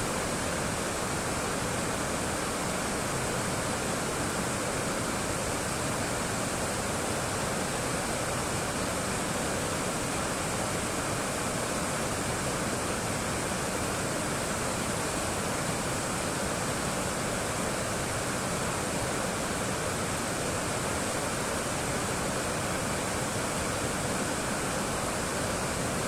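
River water rushing steadily over a low weir and down the rapids below it.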